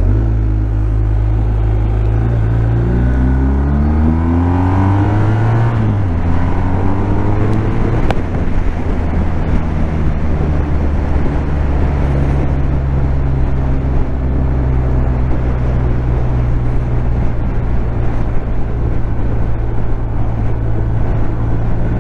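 BMW R1250R's 1254 cc boxer twin pulling hard under acceleration, its pitch climbing for several seconds, dropping as it shifts up about six seconds in and again about eight seconds in, then running steadily at cruising speed. Wind rush is mixed in, heard from inside the rider's helmet.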